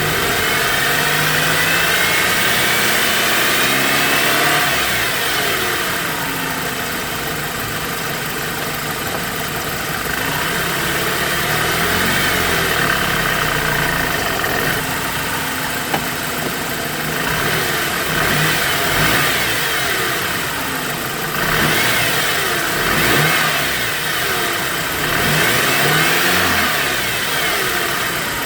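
BMW E90 engine running and being revved again and again, its pitch rising and falling with each blip, with the rev changes coming quicker in the second half. A whine rides on the engine note, which the owner is tracing to the belt drive and its pulley bearings.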